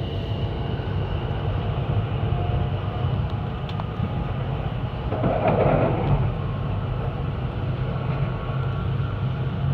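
E2-series Tohoku Shinkansen train giving a steady low hum and rumble. A louder swell of noise comes about five to six seconds in.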